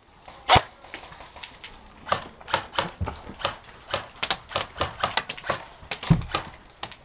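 Airsoft gunfire: a string of sharp, irregular single cracks, one loud one just after the start and then two or three a second from about two seconds in, with a couple of low thuds among them.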